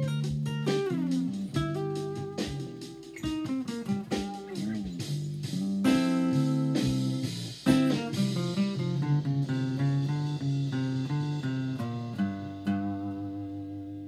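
Acoustic guitar playing a blues: picked phrases with some notes sliding in pitch, a sharp strummed chord about halfway through, and the last notes left ringing and fading near the end.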